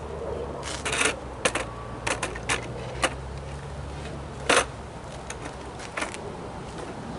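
Skateboards being handled and picked up: a string of irregular clicks and knocks as the decks, trucks and wheels clack together, the loudest about four and a half seconds in. A low steady hum runs underneath.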